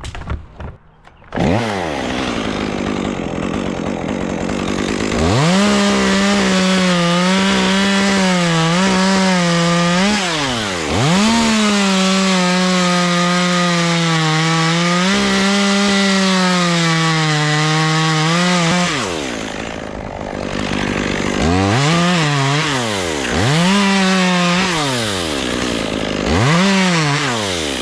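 Gas chainsaw held at high revs and cutting wood, its engine pitch dipping briefly under load and recovering several times. It drops back to idle, then revs in a few short throttle blips near the end.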